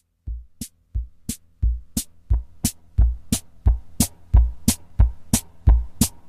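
Background music with a steady beat: low thumps alternating with sharp high clicks, about three beats a second in all, over a faint low hum that fills in as it goes.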